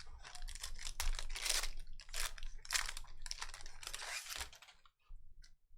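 Trading card pack wrapper being torn open and crinkled, a run of crackling rustles that stops about four and a half seconds in, followed by a few faint clicks as the cards are handled.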